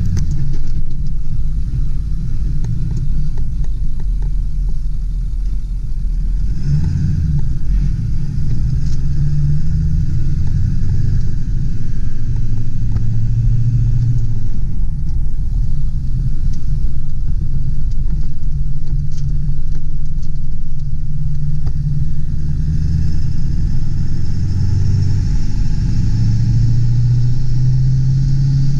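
1999 Ford F-250 Super Duty's 7.3L turbo diesel V8 running as the truck is driven, a steady low drone whose pitch shifts up and down several times with throttle and speed.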